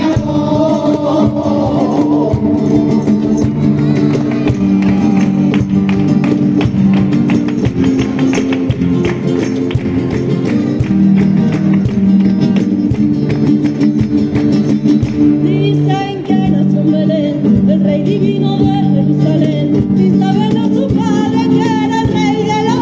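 Two Spanish guitars strumming steady chords of a Christmas song, with a group of women singing and clapping along in rhythm. The singing drops back in the middle and comes in strongly again about two-thirds of the way through.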